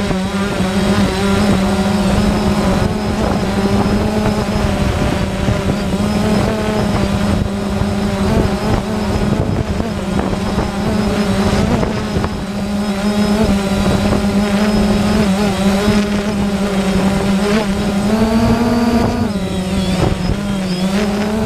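DJI Phantom quadcopter's motors and propellers humming steadily, with wind rumble; the pitch rises slightly and then dips briefly near the end.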